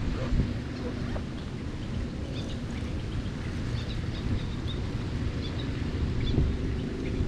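Wind rumbling on the microphone by a pond, with faint short bird chirps scattered through the middle.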